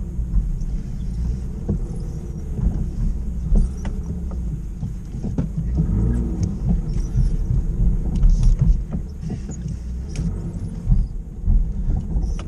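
Stroked BMW M50B30 straight-six running at low revs, heard from inside the E36's cabin as the car is driven slowly, a steady low rumble with scattered knocks and clunks.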